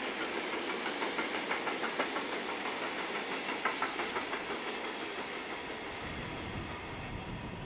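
A train passing on the track, its wheels clicking over the rail joints about three times a second for the first few seconds over a steady hiss, then a low rumble building near the end.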